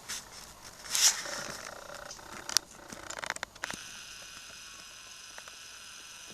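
Rustling and clicking handling noise on the microphone, loudest about a second in with a sharp click about two and a half seconds in. From about four seconds in it gives way to a steady hiss.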